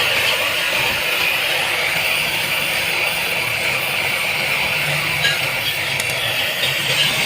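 A steady, even hiss from a workshop tool running continuously on the cylinder head job, with a few light clicks near the end.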